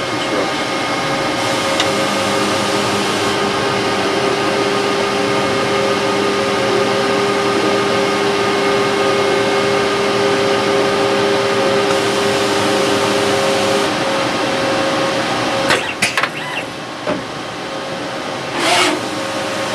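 MPM stencil printer running: a steady mechanical hum with several held tones from its drives, one of which stops about two-thirds of the way through. A few clicks and knocks follow, then a short hiss near the end.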